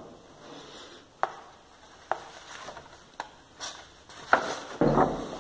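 Large paper sheets being handled and moved against a wall, rustling, with a handful of sharp taps and clicks spread through, and a fuller rustle near the end.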